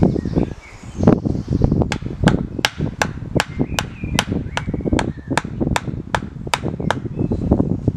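A hand tool striking wood in a quick, even rhythm: about fifteen sharp blows, roughly three a second, starting about two seconds in and stopping near the end. Birds chirp in the background.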